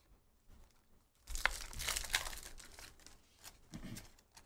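A foil trading-card pack wrapper being torn open and crinkled in the hands: a crackling rustle that starts about a second in and dies away over the next two seconds.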